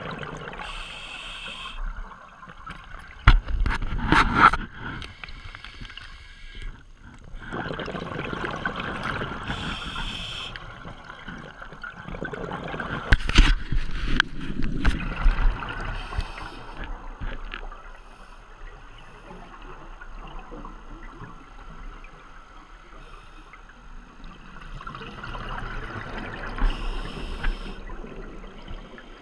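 Scuba diver's breathing heard underwater: bursts of bubbling exhaust from the regulator every several seconds over a steady underwater rumble. Sharp knocks and clatter at about 3 to 4 seconds in and again around the middle come from the camera housing being bumped and handled.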